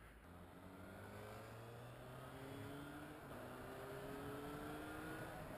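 Yamaha FZ6 motorcycle's inline-four engine pulling under acceleration: its pitch climbs steadily, drops back at each upshift and climbs again, growing louder. Wind rush is heard behind it.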